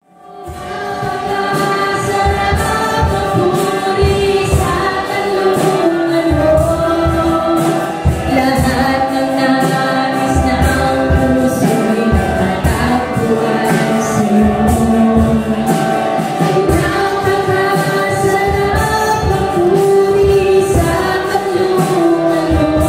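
Church congregation singing a worship song together with band accompaniment and a steady drum beat, fading in at the start.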